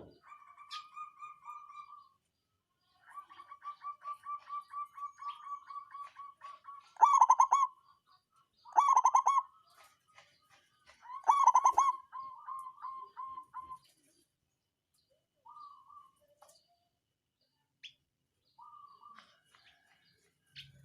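Zebra dove (perkutut) cooing: runs of rapid staccato coo notes, broken by three louder, fuller notes in the middle, then shorter scattered phrases toward the end. A sharp click right at the start.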